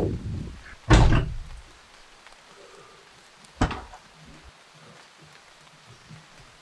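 A heavy thump about a second in, followed a few seconds later by a single short, sharp knock, over faint rain.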